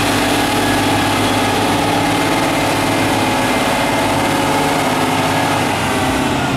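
An engine running steadily, holding an even pitch and level, with a low hum under it.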